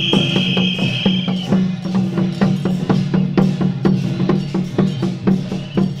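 Taiwanese temple-procession percussion: drums and wood-block strikes beating a fast, steady rhythm over a low drone, with a high held note that stops about a second and a half in.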